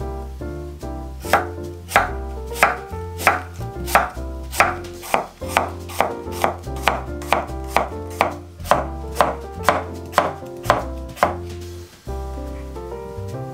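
Chef's knife slicing fruit on an end-grain wooden cutting board: a run of sharp knocks that starts about a second in, quickens to two or three a second, and stops near the end. Background music plays throughout.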